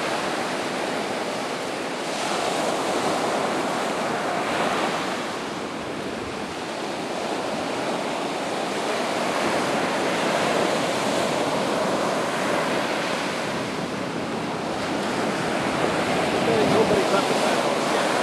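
Gulf of Mexico surf breaking and washing up a sandy beach, the rush swelling and easing every few seconds as each wave comes in.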